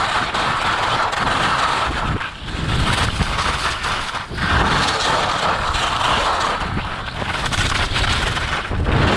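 Skis scraping over icy, hard-packed snow at speed, with wind rushing over the camera microphone; the scraping dips briefly about two and four seconds in.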